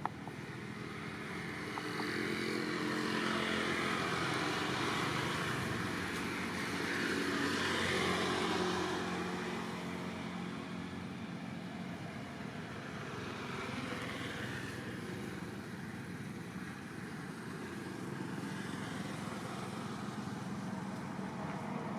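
Motor vehicle engine noise swelling as a vehicle passes, loudest from about two to nine seconds in, then a second, weaker pass a few seconds later.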